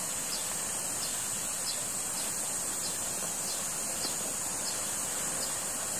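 Steady high-pitched insect chorus, with a faint short chirp repeating about every half second.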